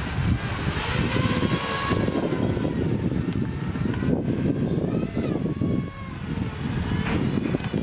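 Quadcopter drone's propellers and motors whining in flight, the pitch gliding up and down as it manoeuvres, over a heavy rumble of wind on the microphone.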